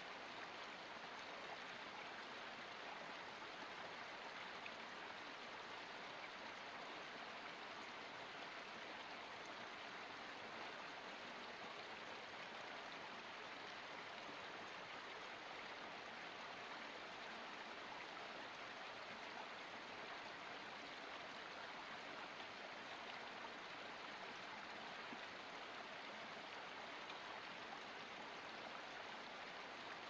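Small forest stream trickling and splashing down over mossy rocks in a steady, even rush of water.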